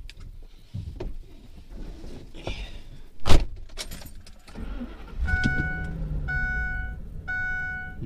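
A Ford truck's door is slammed shut with one loud bang, then the engine starts about four and a half seconds in and settles to a steady low idle. Over the idle the dashboard warning chime dings three times, about a second apart.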